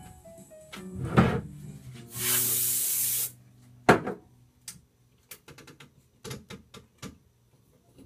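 Handling a wooden contact printing frame at a workbench: a knock about a second in, a steady hiss lasting about a second, a sharp knock, then a string of small light clicks and taps.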